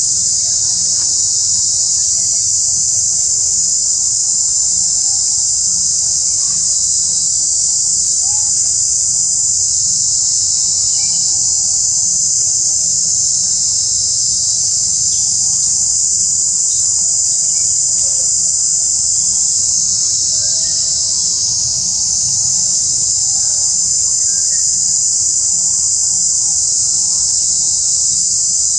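A steady, high-pitched drone of many insects calling together, unbroken and loud.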